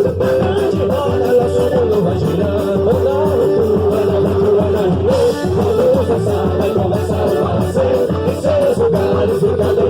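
Loud festa junina dance music with singing over plucked strings and a steady beat.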